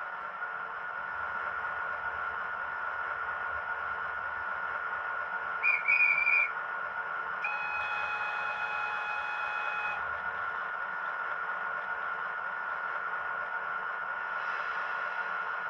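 Model railway sound effects over a steady running hum: a short trilling whistle about six seconds in, then a steady horn blast of about two and a half seconds, as a train gets the signal to depart.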